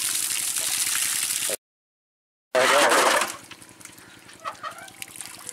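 Water poured from a metal bucket splashing into a concrete channel of water, over the steady low pulsing of a diesel engine running. The sound cuts out completely for about a second, then returns with a second loud splash and settles to quieter trickling.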